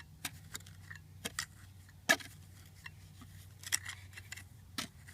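Scattered sharp metal clicks and taps of a steel mudding knife against brick and mortar as mortar is pushed into a joint, the loudest about two seconds in, over a low steady hum.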